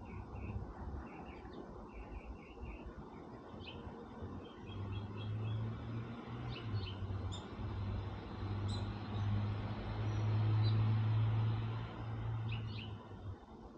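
Small birds chirping in short calls, while a low motor hum swells in from about five seconds in, is loudest a little past the middle, and fades away near the end.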